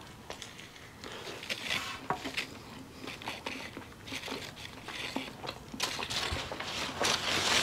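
Someone eating a crispy fried chicken sandwich: scattered soft crunches and small mouth clicks while chewing, with a rustle growing in the last second or so.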